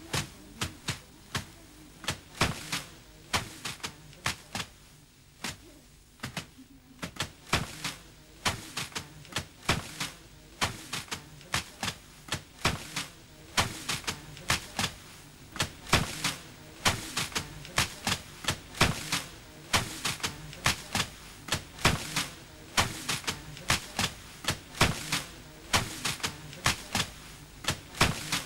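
Quick, sharp percussion strokes, several a second, over a faint steady drone.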